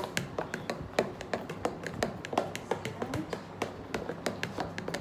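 Fork clicking against a mixing bowl as cake batter is beaten by hand: a quick, irregular run of taps, several a second.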